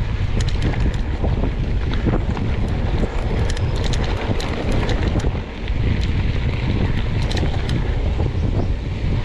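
Heavy wind buffeting the microphone of a camera carried on a moving mountain bike, with scattered clicks and rattles from the bike running over a rough trail.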